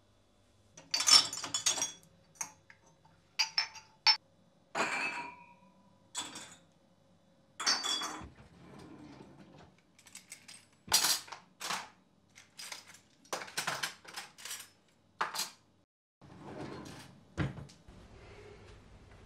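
Dishes and metal cutlery clinking and knocking as kitchenware is handled and put away: a run of separate sharp clinks, a few of them ringing briefly.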